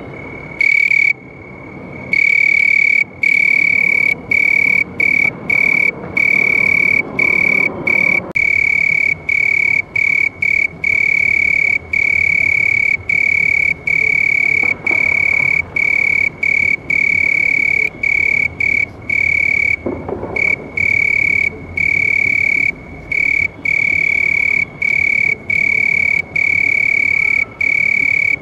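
A single cricket chirping loudly in long, steady trills on one high, pure note, broken by brief pauses every half second to a couple of seconds.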